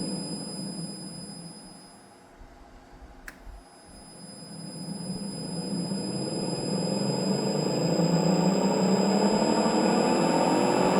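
Electric motor of a TruHone HR8 honer running down to a stop, a single click about three seconds in, then spinning back up to speed and running steadily. The owner says this motor has started knocking as if a bearing were worn.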